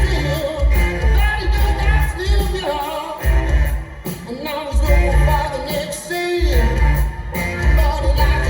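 Live rock band playing with a singer over a heavy, pulsing bass line.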